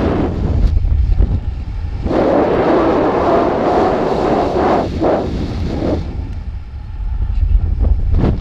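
Wind buffeting the microphone of a weather balloon's payload camera in flight: a loud, uneven rumble, with a louder rushing stretch in the middle.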